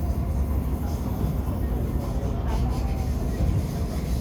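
Interior running noise of a Kawasaki Heavy Industries & Nippon Sharyo C751B metro train in motion: a steady low rumble of wheels on rail inside the passenger car.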